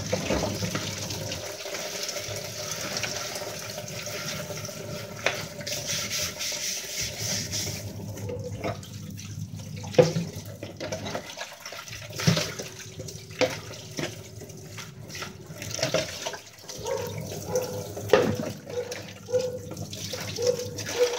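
Tap water running into a kitchen sink while plastic containers and utensils are washed by hand. The water flows steadily for the first several seconds; after that it comes and goes, broken by knocks and clatters of dishes, the sharpest about ten seconds in.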